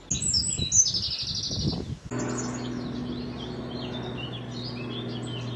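Small birds chirping and singing, with a few low knocks in the first two seconds. About two seconds in, a steady low hum starts and carries on under the birdsong, and it is the loudest sound.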